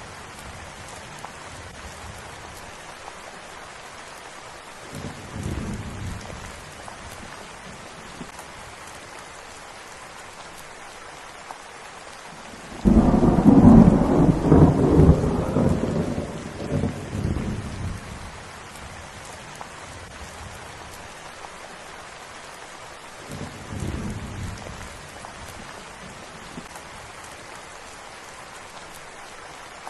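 Steady rain falling, with thunder: a sudden loud crack near the middle that rolls on for about five seconds, and two fainter distant rumbles, one before it and one after.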